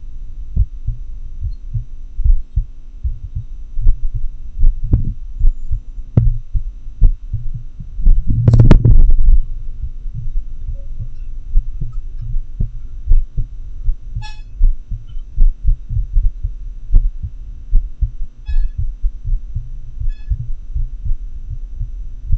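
Heart sounds in atrial fibrillation, picked up through a homemade funnel microphone on the chest: low thuds coming at an uneven rhythm, the irregular beat of the arrhythmia. A louder rushing noise lasts about a second, about eight seconds in.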